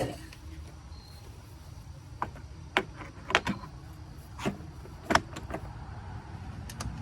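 A scattered run of about seven sharp clicks and knocks over a few seconds, the loudest about five seconds in: hand tools and parts being handled while new wheels go onto a lawn mower. A steady low rumble runs underneath.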